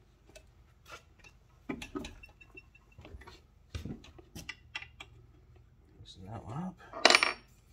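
Allen key clicking and scraping against the bolt heads and steel mounting plate of a small electric traction motor as its mount bolts are loosened to drop the motor and retension the drive chain. The light metal clicks are scattered, with a louder sharp clack about seven seconds in.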